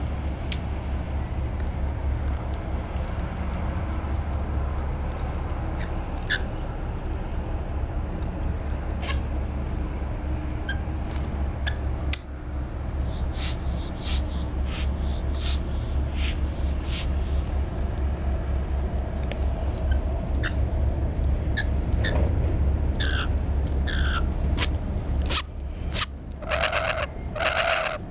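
Rainbow lorikeets on a windowsill: scattered beak clicks and short chirps while they peck at fruit, then, near the end, a quick run of loud repeated calls from a lorikeet right at the microphone. A steady low rumble runs underneath.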